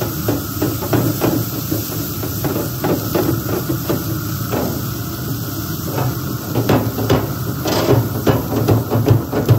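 Water-soaked Grill Rescue sponge-head brush scrubbing hot grill grates: the water hisses into steam against the metal, with irregular knocks and scrapes as the brush head strokes across the grates.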